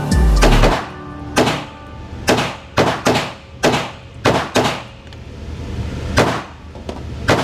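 PSA Dagger 9mm pistol firing about nine shots at an uneven pace, each crack ringing in an indoor range, over background music.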